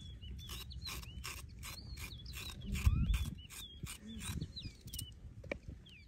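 A carrot being peeled by hand: quick scraping strokes, about two to three a second. Small birds chirp throughout, and a brief low rumble comes about halfway through.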